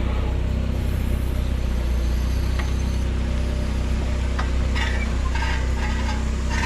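2008 Dodge Avenger on the move, a steady low rumble from the running gear, which sounds gnarly. It is the noise from the front left corner that the mechanic takes for a bad wheel bearing, or maybe a ball joint.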